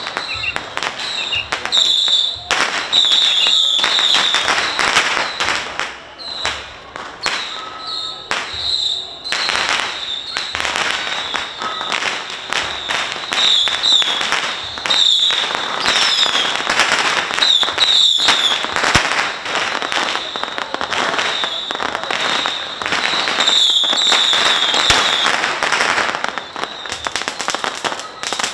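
Strings of firecrackers going off in rapid, dense crackling pops, nearly continuous, with crowd voices mixed in. A high squealing tone comes and goes over the crackle.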